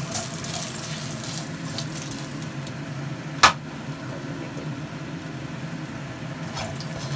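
Ginger slices sizzling in hot oil in a stainless steel wok: a steady frying hiss over a low steady hum, with one sharp knock about three and a half seconds in.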